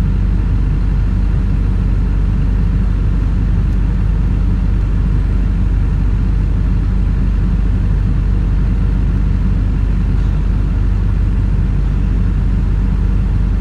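An engine running steadily at constant speed, a loud, even low hum that does not change.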